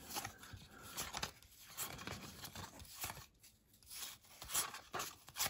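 A trading-card pack's wrapper being torn open and crinkled: a string of soft, irregular rips and rustles.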